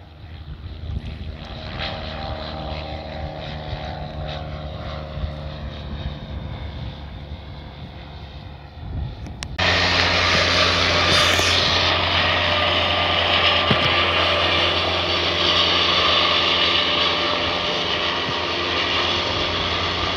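A light single-engine propeller plane flying low, its steady engine drone slowly growing louder. About ten seconds in it cuts suddenly to a light helicopter hovering close by, its engine and rotors much louder and steady.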